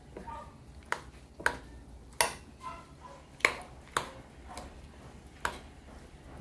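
A metal fork clinking against a ceramic bowl while mixing and mashing a baked potato: about eight sharp clinks at irregular intervals.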